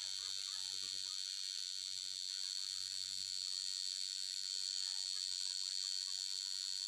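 Tattoo machine buzzing steadily while its needle works ink into the skin of a chest.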